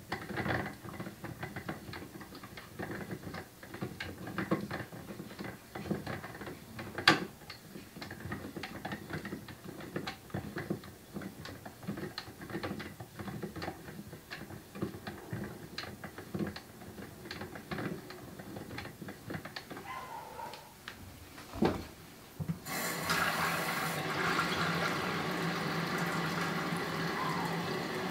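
Light clicking and rattling of a film developing tank's agitator rod, twisted by hand to agitate the film in the developer. About 23 seconds in, a kitchen tap starts running water steadily into a plastic jug.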